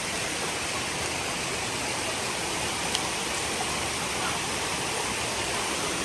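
Waterfall and river water rushing steadily, with one brief faint tick a little before the middle.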